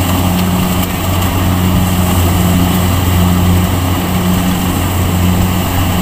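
Kubota DC70 rice combine harvester's diesel engine and threshing machinery running steadily under load, a loud low drone with a higher hum that throbs at a regular beat.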